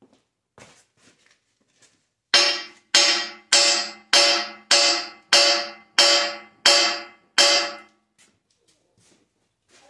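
Hammer blows on the steel Cat 375 excavator H-link, nine strikes about two-thirds of a second apart starting a couple of seconds in, each ringing out with a bell-like metallic tone.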